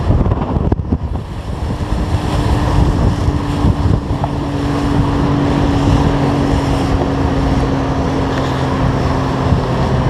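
Evinrude 70 two-stroke outboard motor driving a tri-hull boat at speed through chop; a steady engine tone comes through about two seconds in. Wind buffets the microphone and water rushes past the hull.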